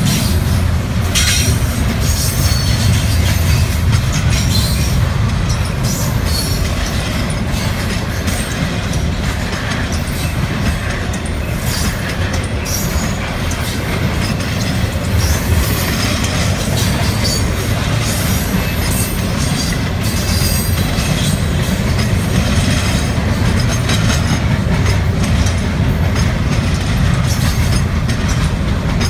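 Double-stack intermodal container train's well cars rolling past: a steady low rumble of steel wheels on rail, with scattered sharp clicks and brief high squeals.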